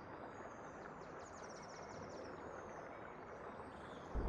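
Steady rush of a mountain stream and waterfall over rocks, with high, rapidly repeated chirps of birds or insects over it.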